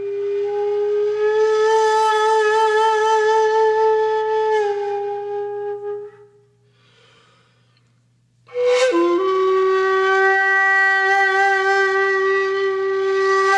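Background music of a flute-like wind instrument playing long held notes with a slight waver. It fades out about six seconds in; after a short near-silent pause, a new breathy note starts with a downward slide in pitch and holds.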